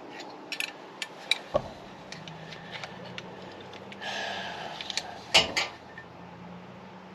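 Scattered metal clicks and clinks of a small wrench working a fitting on an aluminum power steering reservoir, with a brief scrape about four seconds in and a louder clank about a second later. The wrench is being chewed up on a reverse-threaded fitting.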